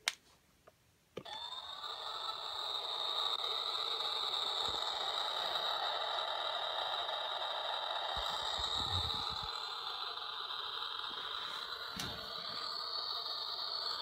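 Dirt Devil Junior toy upright vacuum playing its electronic vacuum-motor sound effect: a click, then about a second later a steady whirring hum with a high whine that keeps going. A brief low rumble comes near the middle as the toy is pushed over the carpet.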